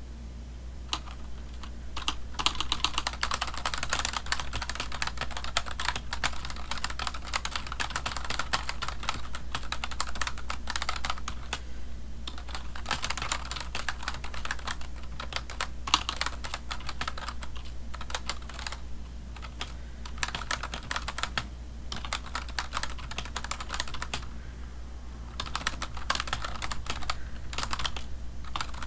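Fast typing on a computer keyboard: dense runs of key clicks with short pauses, including a brief lull near the end, over a steady low hum.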